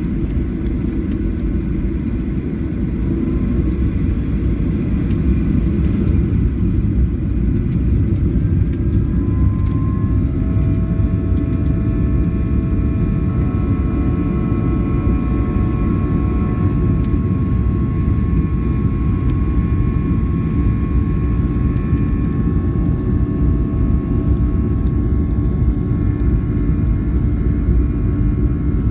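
Boeing 737-700's CFM56-7B turbofan engines at takeoff, heard from inside the cabin: a loud, steady, deep rumble with several engine whine tones that rise in pitch about a third of the way in and then hold steady.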